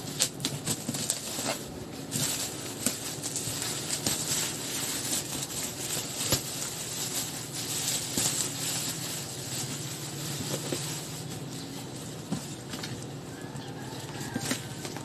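Packaging being handled during an unboxing: rustling and crinkling with many small clicks and taps. It is busiest in the first two-thirds and thins out near the end.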